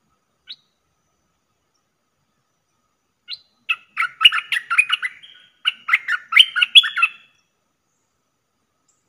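Caged decoy bulbul singing: one short chirp, then a quick run of short, rising and falling notes in two phrases with a brief break between them.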